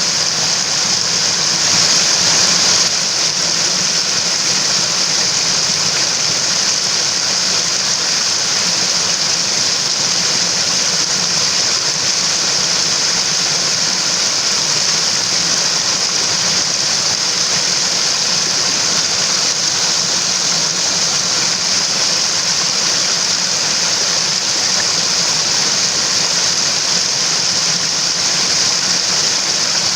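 Water of a mountain stream running steadily, an even rushing hiss that swells slightly about two seconds in.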